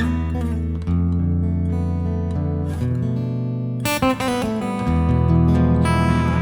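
Live band playing a soul-jazz instrumental passage: a guitar with a clean, acoustic-like tone plays sustained chords over bass guitar and keyboards. A sharp cluster of attacks comes about four seconds in, and a held note wavers in pitch near the end.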